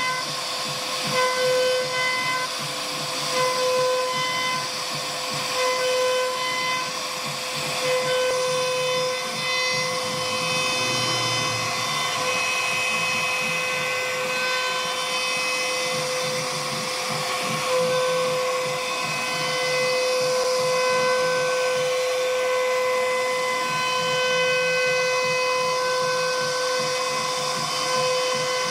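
CNC router spindle whining at a steady high pitch as the bit cuts wood, over a hiss of cutting noise. The whine swells and eases about every two seconds for the first several seconds, then holds steady.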